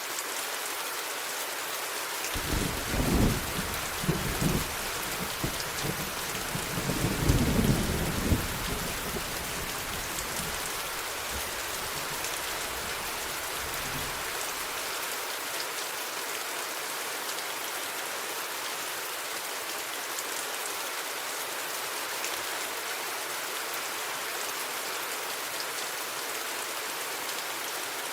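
Steady rain falling, with a rumble of thunder rolling in about two seconds in, swelling to its loudest around seven to eight seconds and dying away; after that only the rain.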